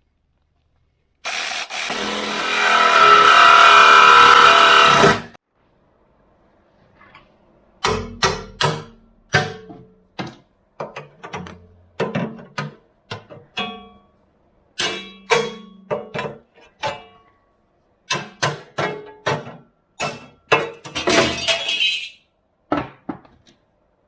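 Angle grinder cutting through metal: one loud cut of about four seconds that builds in level, then a run of many short, choppy bursts.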